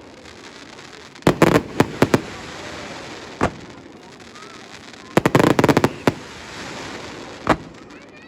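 Fireworks bursting overhead: two quick volleys of sharp bangs, each about a second long, with single bangs between them.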